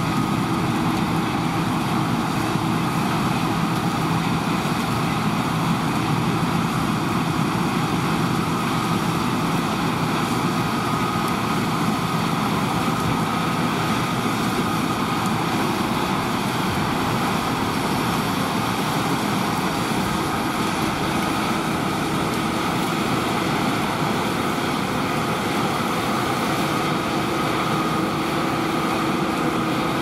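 Claas Lexion 480 combine harvester threshing barley, with the Ford New Holland 8970 tractor running alongside: a steady machinery drone with a few steady whining tones and no breaks.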